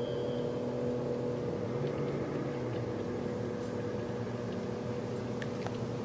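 A motor running steadily: an even droning hum whose pitch does not change, with a few faint clicks near the end.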